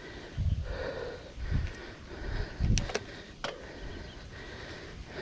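A hiker breathing hard from the uphill climb, with low thumps from footsteps or camera handling about once a second and two sharp clicks a little past the middle.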